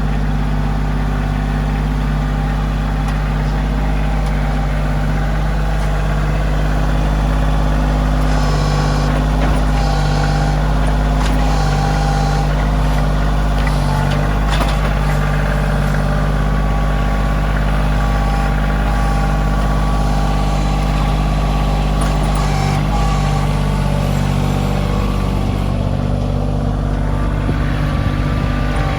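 A heavy machine's engine running steadily at a low, even pitch, with a few brief clatters partway through.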